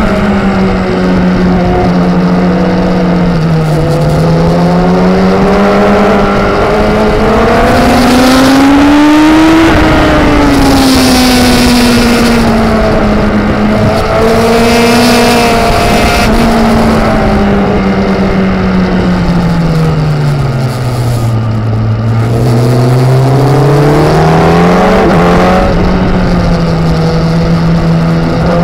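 Sport motorcycle engine heard from onboard at racing speed, with rushing wind noise. The engine pitch climbs to a peak about ten seconds in, falls away to its lowest a little past twenty seconds as the bike slows for a corner, then rises again as it accelerates out.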